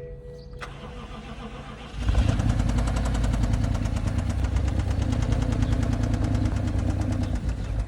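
BMW X6 engine being cranked by its starter without catching: a rapid, even churning that starts about two seconds in and keeps going for several seconds. The crank fails for lack of power, which the people at the car put down to a run-down battery.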